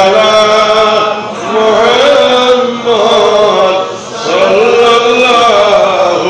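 A man's voice chanting in long, melodic, drawn-out phrases with short breaks between them, in the sung style of a Bengali waz sermon.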